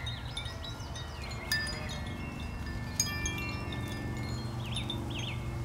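Chimes ringing, struck again about a second and a half in and again about three seconds in, their high tones lingering between strikes.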